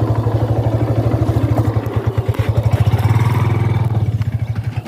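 A small engine idling with a quick, even beat, picking up briefly about three seconds in.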